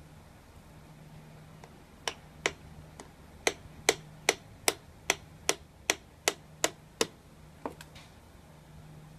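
About fourteen sharp taps at roughly two and a half a second, starting about two seconds in and thinning out near the end. A half-inch wooden dowel is being tapped down into a polyurethane marimba mallet head that rests on a steel plate, seating the head on the handle.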